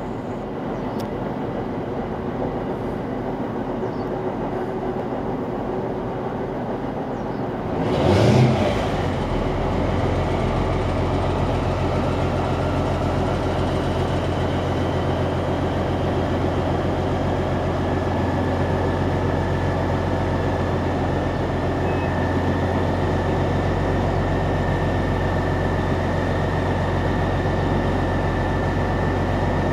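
DR1A diesel multiple unit's diesel engine starting: steady running at first, then about eight seconds in a short loud surge as the engine fires up, settling into a louder, deeper steady idle. A thin steady high whine joins about halfway through.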